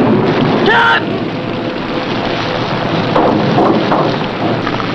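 Heavy rain squall: a steady rush of wind and driving rain.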